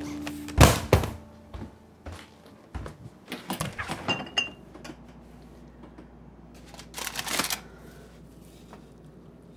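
Two loud knocks, then a run of clinks, knocks and clatters of containers being handled in an open refrigerator, with a short rustle near the end.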